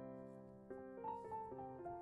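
Quiet background piano music, a gentle melody of sustained notes changing every fraction of a second.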